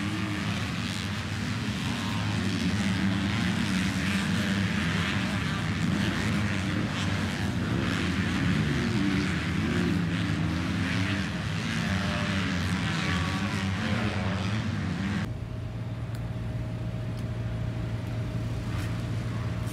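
Several motocross bikes racing on the track, their engines revving up and down over one another. About 15 seconds in the sound cuts to a steady electric hum from a Ryobi AirCannon fan running.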